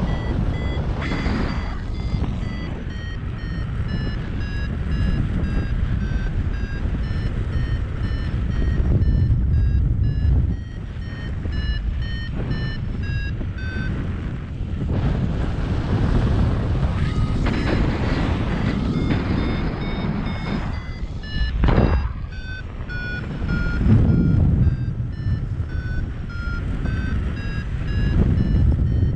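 Paragliding variometer beeping in a steady run of short beeps, the pitch sliding down and then climbing again as the climb rate changes, over wind rushing on the microphone with a couple of stronger gusts near the end.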